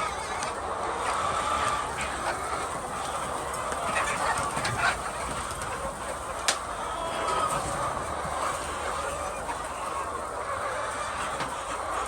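A dense, steady chorus of many laying hens clucking and calling together, with a few short sharp clicks, the sharpest about six and a half seconds in.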